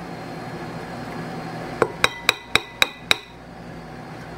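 Small metal source capsule tapped six times in quick succession against the rim of a bowl, each tap a short ringing clink, knocking loose salt off it.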